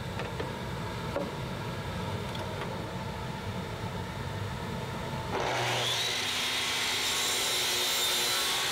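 Makita sliding compound miter saw running with its blade spinning free, then about five seconds in the blade bites into plywood and the sound turns louder and harsher as it cuts.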